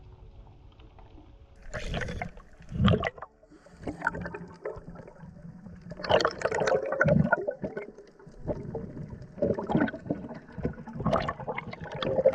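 Water gurgling and sloshing in uneven bursts.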